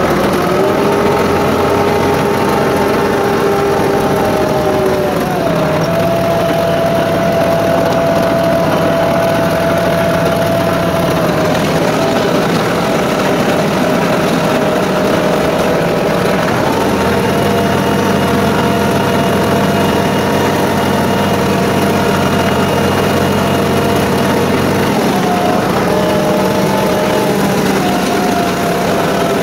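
Ford 5610S tractor's diesel engine running under load while pulling a box blade through gravel, its speed shifting up and down a few times.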